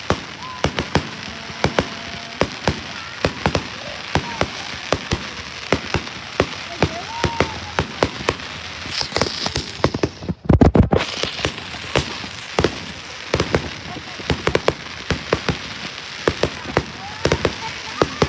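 Fireworks going off: a quick, irregular string of sharp pops and bangs, with a dense, louder cluster of booms about ten seconds in.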